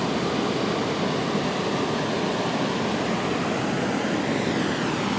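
Steady rush of river whitewater where the current spills over a low ledge into rapids, an even noise without breaks.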